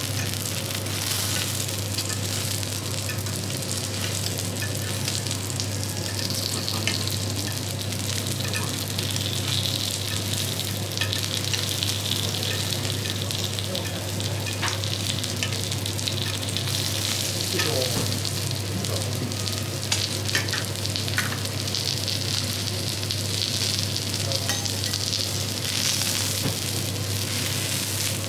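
Wagyu steak sizzling steadily on a hot steel teppanyaki griddle, with a few light clicks of the knife and carving fork on the plate as the meat is sliced. A steady low hum runs underneath.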